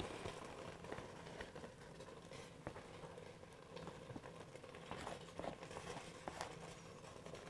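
Faint soft scraping and scattered light taps as a silicone spatula pushes shredded cheddar and cream cheese off a flexible plastic cutting mat into the pressure cooker's pot. Under it, a faint sizzle from the pot searing.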